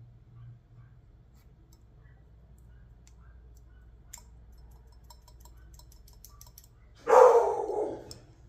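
A dog barks once, loudly, near the end. Before that there are only faint small clicks and ticks of handling.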